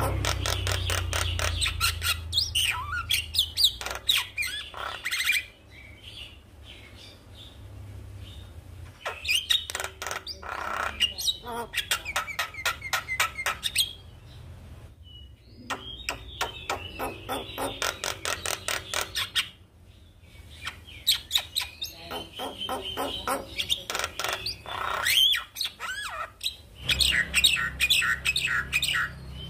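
Javan myna (jalak kebo) singing in full voice: about five long phrases of rapid, chattering notes, each a few seconds long, with short pauses between them.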